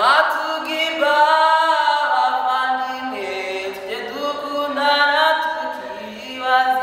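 A young woman singing unaccompanied, coming in suddenly on a rising note and then holding long notes of about a second each that slide from one pitch to the next.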